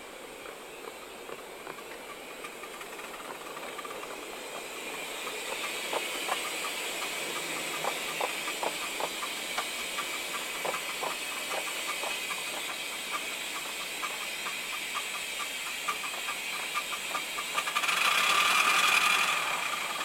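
Miniature steam locomotive running with passenger cars inside a brick tunnel: steam hisses steadily under a run of sharp clicks from the wheels and running gear. About 18 s in, a louder swell of steam hiss rises and then falls away.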